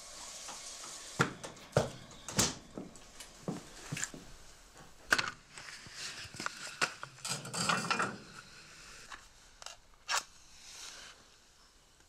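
Split firewood logs knocking and clunking as an armload is set down and handled at a wood cookstove: a run of separate sharp knocks, a longer scraping rustle about seven seconds in, and one last knock near ten seconds.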